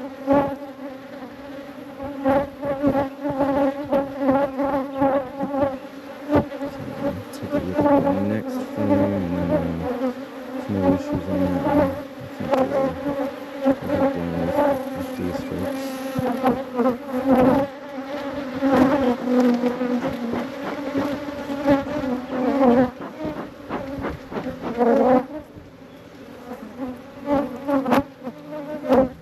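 Honey bees buzzing around an open hive during an inspection, single bees flying close past the microphone so the pitch wavers up and down. The buzz thins out near the end.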